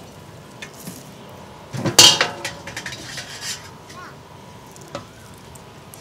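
Hands working a raw mutton carcass and pushing a green twig through the meat to pin it shut: rustling and scraping of wet meat and twig. The loudest moment is a harsh rasping scrape about two seconds in, followed by smaller scrapes.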